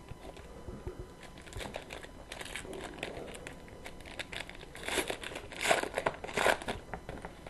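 Trading-card pack wrapper crinkling as it is handled and torn open, in irregular crackles that grow loudest about five to six and a half seconds in.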